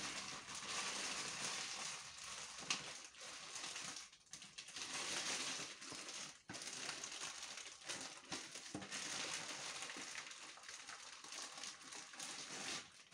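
Plastic courier mailer bag being pulled open and handled by hand, crinkling and rustling, with brief pauses about four and six seconds in.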